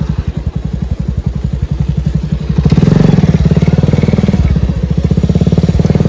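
Motorcycle engine running with a loud, steady exhaust beat as the bike is ridden; it gets noticeably louder about two and a half seconds in.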